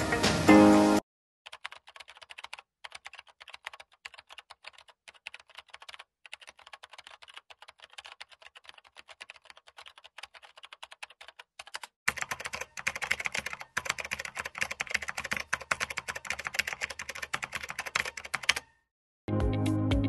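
Typing on a computer keyboard: fast, irregular key clicks, faint and thin at first, then louder and fuller from a little past halfway until they stop near the end.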